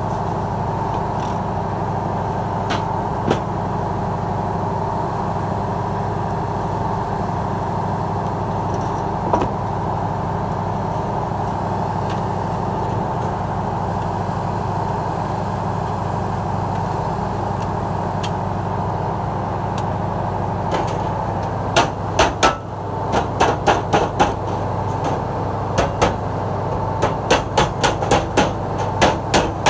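A steady engine hum runs throughout. From about two-thirds of the way in, quick sharp hammer blows on a sheet-metal tray held against a steel bar, coming in short clusters of several blows a second.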